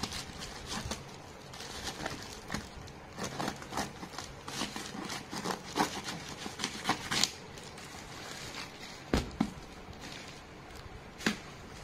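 Plastic courier mailer bag being pulled open and handled: crinkling and rustling plastic with many small clicks and scrapes. A few sharper knocks stand out, the heaviest two near the end as the cardboard box inside is handled on the floor.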